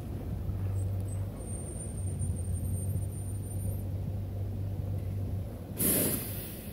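School bus engine running with a steady low drone as the bus drifts on ice. Near the end there is a short, loud hiss.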